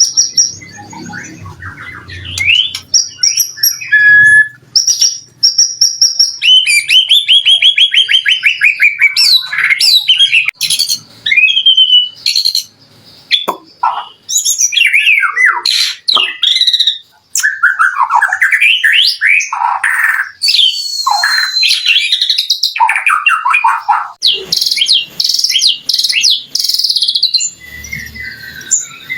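White-rumped shama (murai batu) singing continuously in full voice, loud and varied: clear whistles gliding up and down, a fast run of repeated trilled notes, and sharp chips and clicks.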